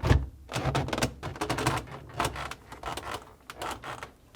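Hard plastic knocks and clicks from a refrigerator's plastic icebox assembly being pressed into its slots and handled, beginning with a sharp knock and followed by irregular lighter taps.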